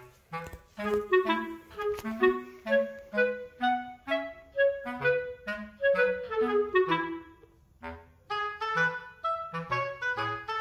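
Background music: a light tune of short, detached notes, about three or four a second, with a brief pause about seven and a half seconds in.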